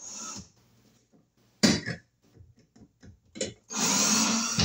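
Cordless drill driving the mounting screws of an electrical receptacle into its box: a brief run at the start and a steady, whining run of about a second near the end, with a sharp knock and a smaller click in between.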